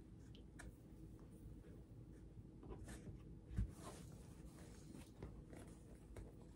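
Faint rustling and handling of cross-stitch fabric, with small scrapes and a soft thump about three and a half seconds in.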